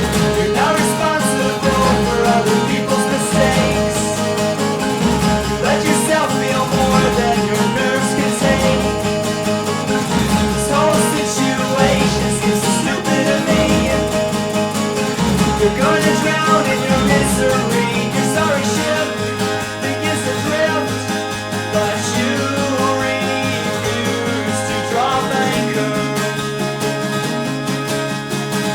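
Recorded band music: a guitar-led passage with no clear vocals over a steady low beat. The bass drops away for several seconds about two-thirds through, then returns.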